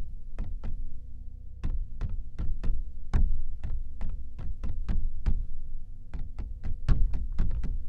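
Sampled shock-mount percussion from Tonehammer's Anti-Drum Vol 1 "Shock Mount" patch: a sequenced groove of sharp knocks and taps, about three or four a second and busier near the end, over a steady low rumble and a faint steady hum.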